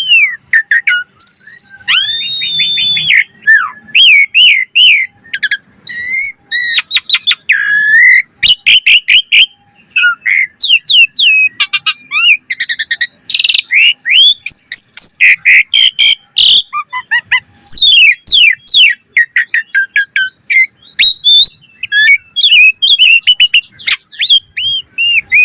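Asian pied starling (jalak suren) singing a fast, varied song: quick whistled notes sweeping up and down, mixed with chirps and sharp clicks, with only brief pauses.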